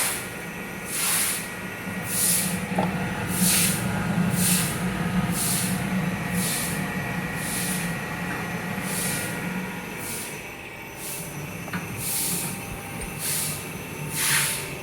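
Knife grinding machine running with a steady low hum, overlaid by short hisses repeating about once a second.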